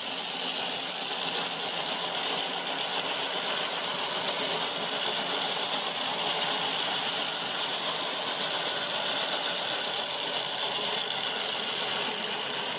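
Eight identical battery-powered toy cars on AAA batteries running together: a steady whirring of their small electric motors, with a rattle.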